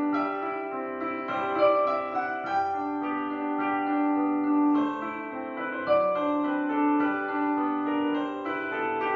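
Slow solo piano music, its notes held and overlapping.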